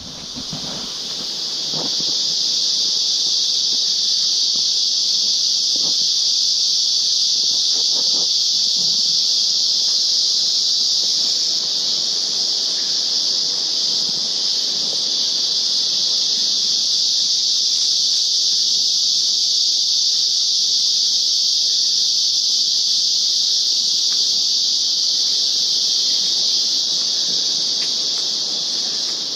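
Steady, high-pitched insect chorus that drones on unbroken, with a few soft footsteps on the trail in the first several seconds.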